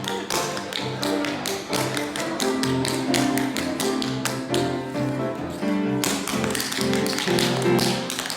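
Tap dancing to music: quick, irregular taps of tap shoes on a hard floor over a melody. There are several taps a second.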